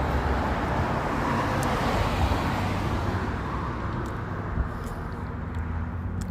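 Road traffic going by: a passing vehicle's noise swells and then fades away about three to four seconds in, over a steady low traffic hum.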